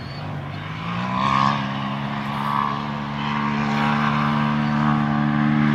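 Polaris RZR Turbo S side-by-side's turbocharged twin-cylinder engine under hard throttle. The revs climb over the first second, hold high as the car comes closer and louder, then drop away right at the end as the throttle is released.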